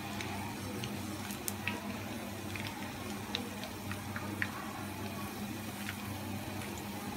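Oil sizzling steadily in a frying pan around shallow-frying egg-coated minced-meat kebabs, with scattered small pops and crackles.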